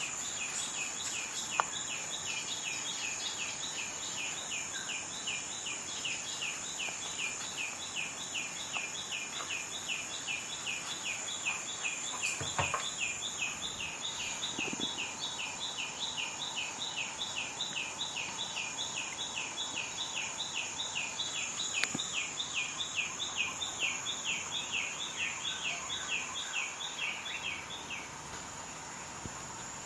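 Steady rhythmic high-pitched chirping, several chirps a second, over a constant hiss; the chirping stops shortly before the end.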